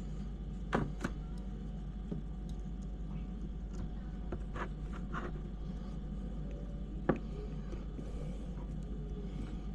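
Scattered light clicks and taps of a small screwdriver and plastic RC parts being handled while a screw is worked into the transmission, over a steady low hum.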